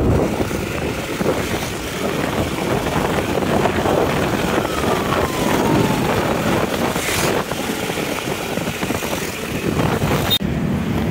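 Motor vehicle engine running on the move, with road and wind noise on the microphone. The sound changes abruptly about ten seconds in.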